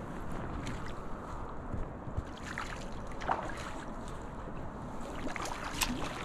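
Hooked trout splashing at the creek surface as it is played on a fly line: a few irregular short splashes over a steady rush of wind on the microphone and moving water.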